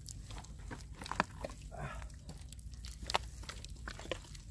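Hand digging and scooping wet, packed mud out of a deep mantis shrimp burrow: irregular wet squelches and sucking clicks as the mud is pulled loose.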